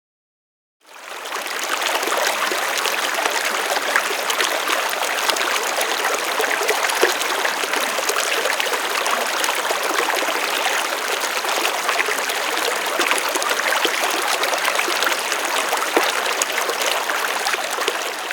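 River water flowing: a steady rush with fine splashing throughout, fading in from silence about a second in.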